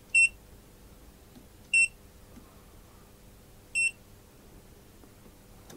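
GVDA GD166B clamp meter beeping three times, short high-pitched beeps spread over about four seconds, each one the meter confirming a press of its front-panel buttons.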